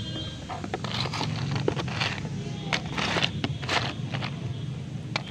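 Dry multani mitti (Fuller's earth clay) chunks being handled by hand in a cardboard box: a run of dry crackles and sharp clicks in clusters, over a steady low hum.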